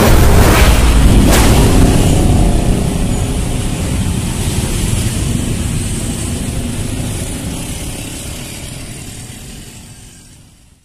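Production-logo sound effect: two sharp hits in the first second and a half, then a long noisy rush that slowly fades out to nothing.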